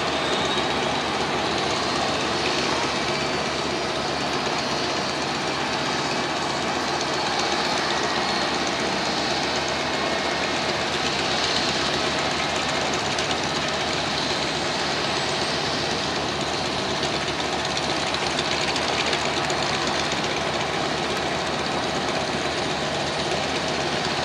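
Three radial engines of a Junkers Ju 52 trimotor running steadily at idle on the ground, their propellers turning, a constant low drone with a rough, uneven beat.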